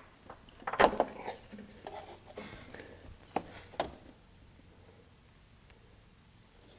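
Gloved hands working rubber coolant hoses and plastic quick-connect fittings loose in a car's engine bay: light rustling with a few sharp plastic clicks and knocks, the last about four seconds in.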